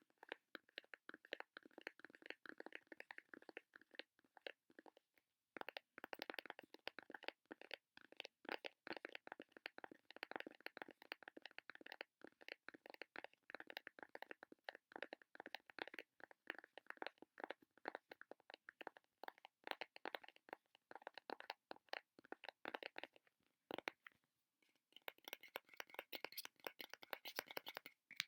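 Close-up ASMR fast tapping and sticky sounds: a dense stream of quick taps and clicks. It pauses briefly twice and turns brighter and crisper near the end.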